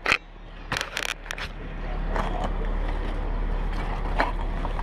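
Scrapes and sharp knocks of gear against rough concrete and loose rock rubble: a cluster about a second in, then single knocks near 2 and 4 seconds. A steady low hum runs underneath.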